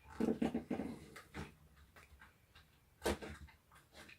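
Plastic clicks and creaks of a Ryobi 4V cordless screwdriver's clamshell housing being pried at while its stuck halves hold together: a cluster of short knocks in the first second and a half, and another about three seconds in.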